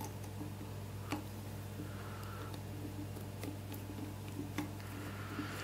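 Light, irregular clicks and ticks from the opened plastic pendulum mechanism of a waving lucky cat, over a steady low hum.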